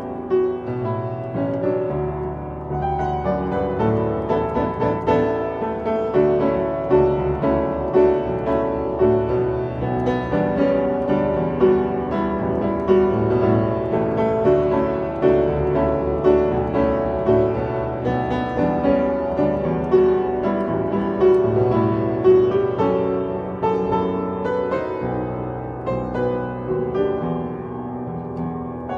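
Piano playing a song arrangement: a melody over chords and a bass line, continuous throughout.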